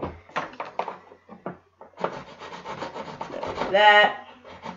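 Serrated knife blade scraping small etches into a square wooden dowel, roughening it so hot glue grips better: a few separate scrapes, then rapid scraping strokes from about two seconds in. A brief steady tone sounds about four seconds in and is the loudest moment.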